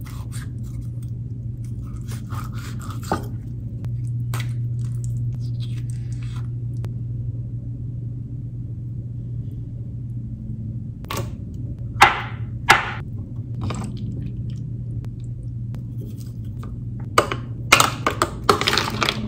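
Knife scraping and knocking on a cutting board as an avocado is cut and its flesh scraped, with two sharp knocks a little past the middle. Near the end, a quick run of clicks and clatter as ice cubes are cracked out of a plastic ice tray and dropped into a bowl. A steady low hum runs underneath.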